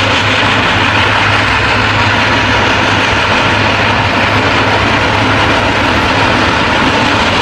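Steam train sound: a loud, steady rushing noise over a constant low rumble.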